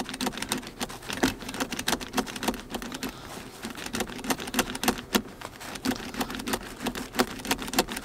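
2023 Subaru WRX front seat belt latch plate clicked into and pulled out of its buckle over and over, release button held down, making an irregular run of sharp clicks several times a second. This is the buckle-20-times-in-30-seconds trick meant to put the seat belt reminder chime into sleep mode.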